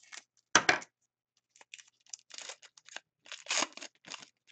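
Scissors snip through a foil-wrapped trading card pack with one loud cut about half a second in. The wrapper then crinkles and tears as it is pulled open by hand.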